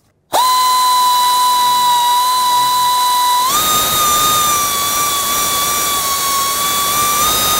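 Pneumatic air ratchet spinning a flange bolt down. It starts a moment in as a steady high whine over a hiss of exhaust air, and steps slightly higher in pitch and noisier about three and a half seconds in.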